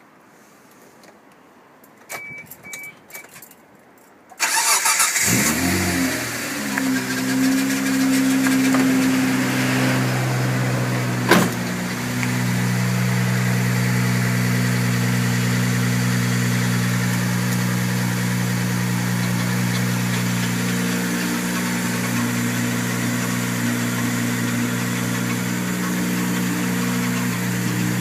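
Car engine cranking and catching about four and a half seconds in, its pitch rising briefly, then settling into a steady idle, with the rattle that the recording is posted to show. Before the start, a few clicks and two short high beeps; a single sharp click around eleven seconds in.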